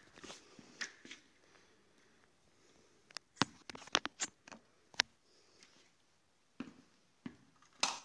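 Handling noise of a phone being moved and set on its mount close to the microphone: scattered sharp clicks and knocks with light rustling, a quick cluster of clicks around the middle and a few more knocks near the end.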